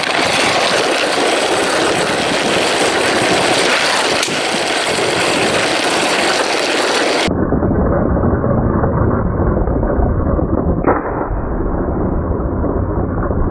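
LEGO City train's motor and wheels running at full speed along its track, heard from on board: a dense, continuous clatter. About seven seconds in, the sound turns muffled and deeper, and a single sharp click comes near the end.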